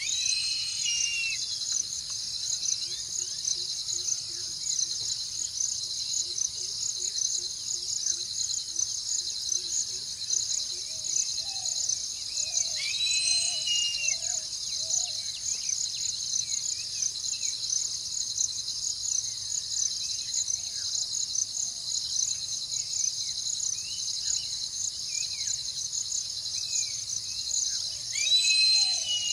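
Steady, dense chorus of insects buzzing high throughout, with scattered bird calls: short sweeping calls about a second in, midway and near the end, and a run of quick low notes in the first half.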